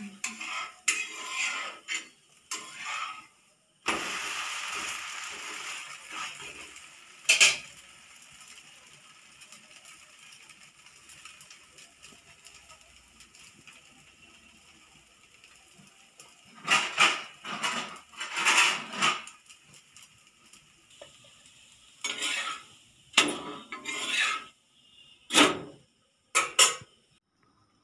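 A steel spatula scrapes and taps against a dosa pan, and steel plates clatter, in separate bursts of clicks and scrapes with quiet gaps between. About four seconds in there is a burst of sizzling that fades over about three seconds.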